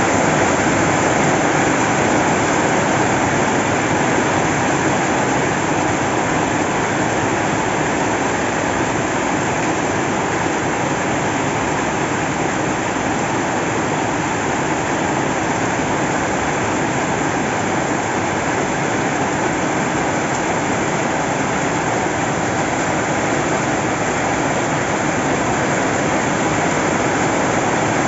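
Heavy rain pouring down in a steady downpour, an even rushing hiss with no breaks.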